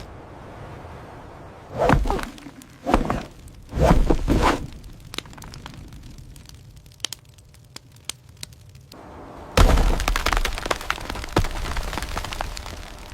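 Three heavy cracks about a second apart, then scattered clicks. About two-thirds of the way in comes a loud crash that trails off into crackling.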